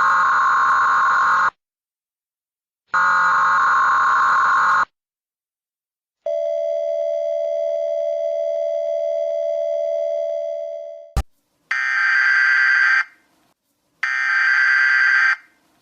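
Emergency Alert System tones: two harsh, buzzy electronic data bursts, then a steady alert tone held about five seconds that fades out. A sharp click follows, then two more short screeching data bursts.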